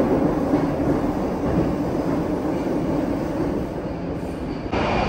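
Metro train running, heard from inside the carriage: a steady rumble and rattle of the wheels on the track. Near the end it jumps to a louder stretch with a steady high whine over the rumble.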